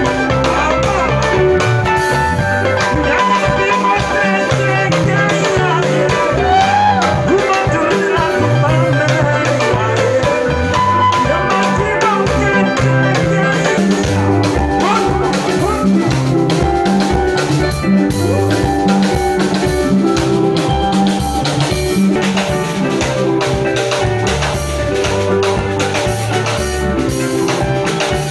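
Live band playing an upbeat song: electric bass and drum kit keep a steady beat, with guitar and a singing voice over them.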